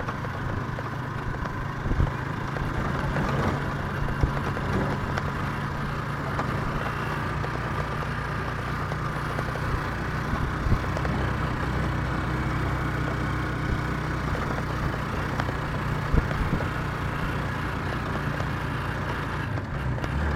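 Vehicle engine running with road noise while driving, heard from inside the vehicle: a steady low hum, broken by a few short knocks.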